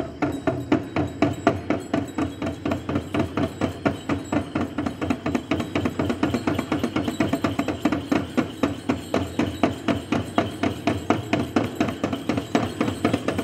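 Jhakri shamans' dhyangro frame drums beaten in a fast, even, driving rhythm.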